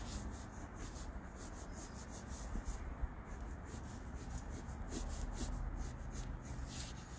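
Blue Crayola colored pencil shading on sketchbook paper: repeated back-and-forth rubbing strokes, a few a second.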